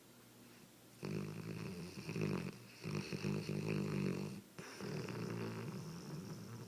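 A sleeping pet snoring: two long snoring breaths, the first starting about a second in and the second following a brief break about two-thirds of the way through.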